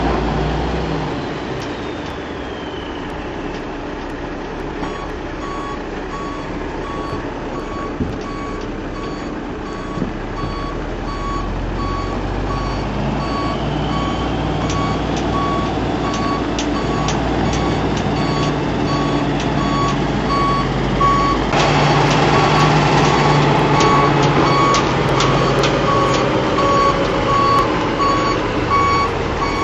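Dump truck backing up: its backup alarm beeps at an even pace from a few seconds in over the steady run of its diesel engine. The engine grows louder near the end as the truck comes closer.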